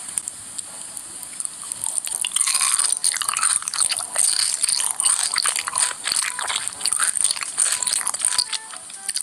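Close-miked eating: crunchy bites and chewing, a dense run of crackling crunches that starts about two seconds in.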